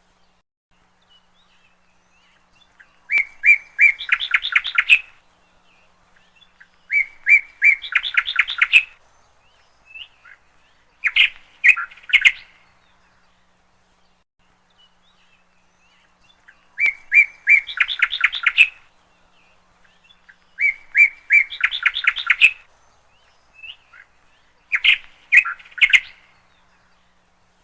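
A songbird singing: six short phrases of repeated chirps that run into fast trills, a few seconds apart, with quiet gaps between them.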